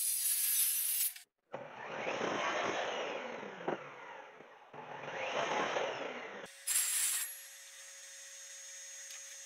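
Stanley miter saw cutting through a pine board, twice, the first cut about three seconds and the second about two, each swelling and then fading. A short loud noise follows, then a faint steady hum.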